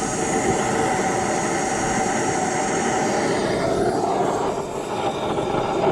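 Gas forge burner running steadily, a dense rushing noise with a faint hum, dipping slightly about four and a half seconds in.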